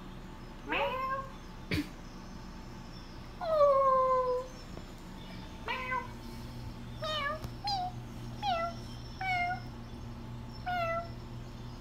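Domestic cat meowing about seven times, each call falling in pitch. The longest and loudest is a drawn-out meow a few seconds in; the later ones are short. A single sharp click comes early on.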